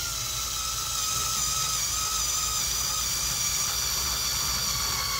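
Black+Decker BDCS20 4-volt cordless screwdriver running steadily with a small drill bit boring into a wooden board. Its motor whine sinks slightly in pitch under the load as the low-torque tool drills slowly.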